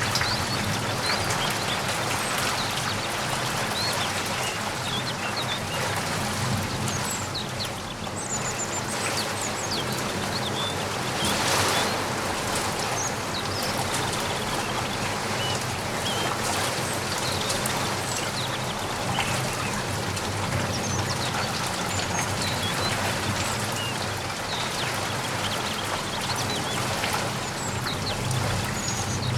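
Steady rainfall, with scattered short high chirps of small birds throughout. The rain swells briefly about twelve seconds in.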